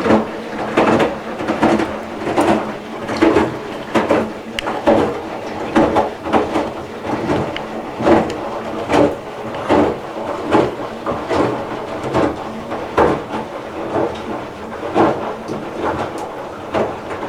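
Candy Smart Inverter front-loading washing machine running a wash. The load tumbles in the drum with a regular thud about every second, over a steady motor hum.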